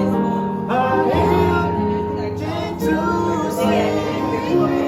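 Music: a song with a singing voice over instruments.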